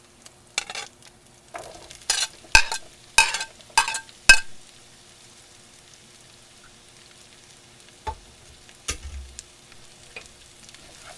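Cut squash going into a hot skillet of onions and jalapeno: a quick run of sharp metallic knocks of a utensil on the pan that ring briefly, then a faint sizzle, with two duller knocks near the end.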